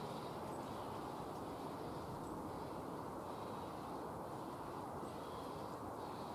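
Steam locomotive, an LMS Black Five 4-6-0, working a passenger train from some distance off, a steady rumbling hiss with its cylinder drain cocks open.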